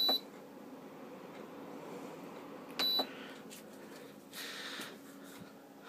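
Evaporative air cooler's fan running with a steady low hum and airflow. Its digital control panel gives a short high beep at the start and another about three seconds in, as buttons are pressed.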